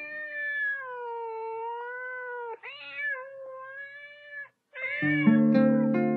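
A cat meowing in long, drawn-out calls that bend in pitch, three in a row. Music with held chords comes in about five seconds in, under the last call.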